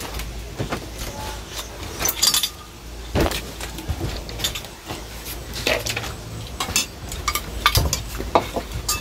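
Metal spoons scraping and clinking against enamel bowls as food is served and eaten, in short irregular clinks over a steady low hum.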